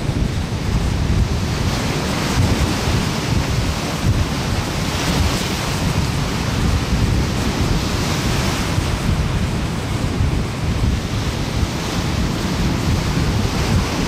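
Ocean surf breaking and washing up a sandy, rocky shore, the hiss of the wash swelling about five seconds in, again around eight seconds, and near the end. Under it runs a steady low rumble of wind on the microphone.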